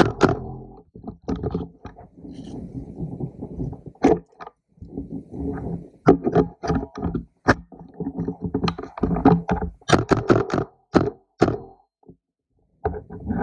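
Handling and movement noise on an airsoft M4 replica carried in play: irregular sharp knocks and clicks, often in quick clusters, among rubbing and rumbling, with a few short pauses.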